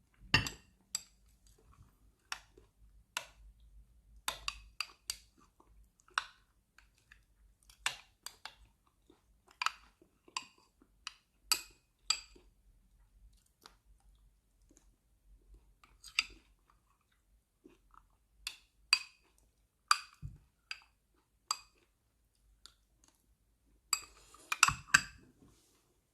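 Someone eating at the table: irregular crisp clicks and taps of a spoon or cutlery against a dish, with chewing. There is a quick flurry of clatter near the end.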